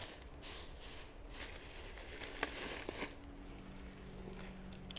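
Faint rustling and handling noises from a small caught redfish being held and worked with a tool, with a few light clicks about two to three seconds in. A faint steady low hum comes in about three seconds in.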